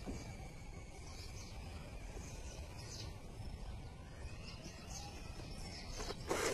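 Thread rasping as it is pulled through the panels of a hand-stitched football, over a steady outdoor background with faint chirps; the loudest pull comes near the end.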